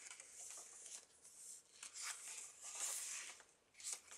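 Pages of a thick handmade paper journal being turned: a few faint rustles and swishes of paper, the loudest about three seconds in.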